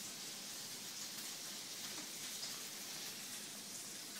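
Steady faint high hiss of background room noise, with a few faint small clicks.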